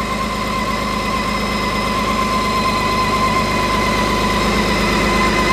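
BMW K1600GT's inline-six engine idling steadily just after a start-up, with a steady high whine over the low engine note.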